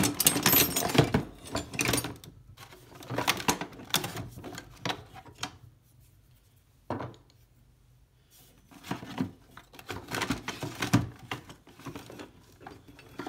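Screwdrivers clinking and rattling against each other and the toolbox as they are rummaged out, with knocks as they are set down on a wooden desk; several bursts of clatter with short quiet gaps between.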